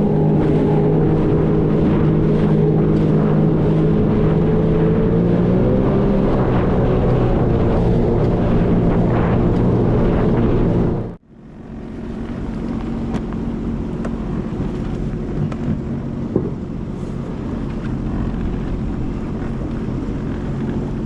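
Sea-Doo FishPro Sport 170 jet ski's three-cylinder engine running steadily at speed, with wind and water noise, its pitch shifting slightly a few seconds in. About halfway through the sound cuts out abruptly, then returns quieter, the engine running more softly under wind noise.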